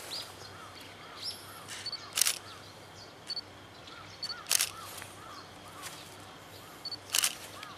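Outdoor ambience with short repeated bird calls over a faint steady low hum, broken by three sharp clicks about two and a half seconds apart.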